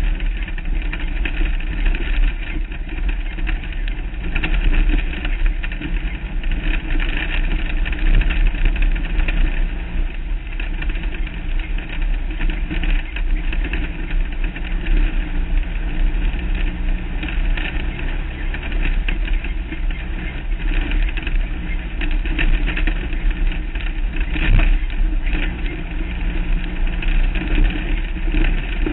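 Off-road race vehicle's engine running at speed, rising and falling, mixed with rumbling road and wind noise from the rough dirt track. A single sharp knock about three-quarters of the way through.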